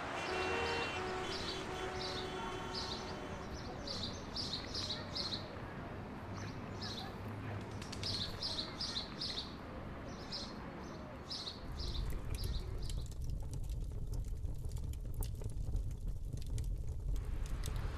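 Birds chirping in quick runs of short calls, while the last held notes of music fade out over the first few seconds. About twelve seconds in, a steady low rumble sets in with faint crackling above it.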